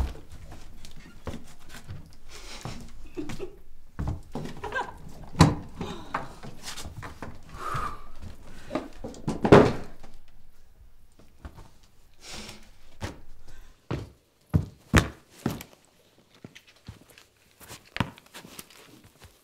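A series of soft knocks and thuds in a small room, the loudest about five and nine and a half seconds in, followed by fewer, sharper clicks spaced out over the last few seconds.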